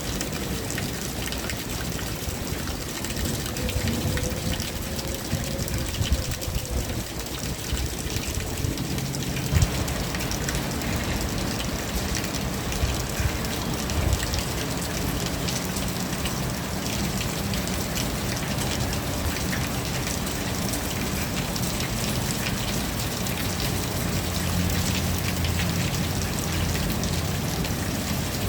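Steady rain falling on surfaces, with many small close drips and splashes, and a faint low rumble underneath.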